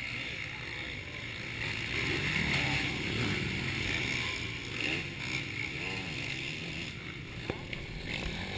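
Motocross dirt bikes running on the track at a distance, their engine pitch rising and falling as they ride, louder from about two seconds in.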